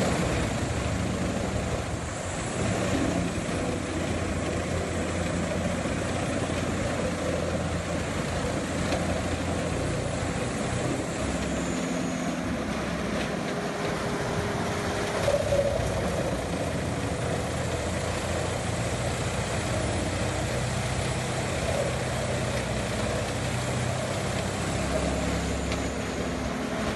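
Large wood chipper running steadily: a continuous engine drone with mechanical noise that stays at a constant level.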